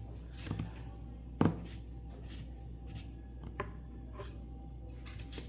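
Knife chopping carrots on a cutting board: irregular sharp knocks, roughly one or two a second, the loudest about one and a half seconds in.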